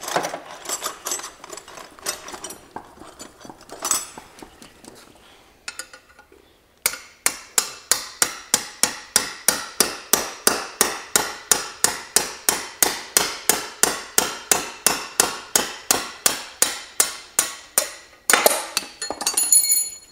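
Hammer striking a punch to drive the damper rod out of a 1942 Harley-Davidson WLA front fork: a steady run of sharp metal taps, about four a second, starting about seven seconds in and running for some eleven seconds. Before it come scattered clinks and knocks of tools being handled.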